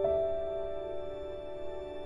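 Calm new-age background music: a sustained note begins at the start and slowly fades away.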